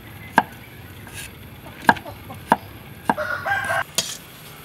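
A steel cleaver chops lumps of brown sugar on a wooden cutting board in several sharp, separate knocks, one about every half-second to second and a half. Just after three seconds in, a brief pitched call sounds over the chopping.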